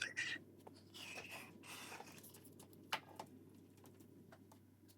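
Faint rustling handling noises, then a few light clicks about three seconds in, as a power adapter and its cable are handled and readied to plug into the laptop.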